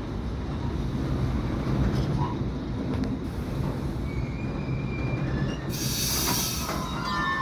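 Freight train rolling into a station: a steady rumble of wagons on the rails, with high wheel squeals now and then and a brief loud hiss about six seconds in.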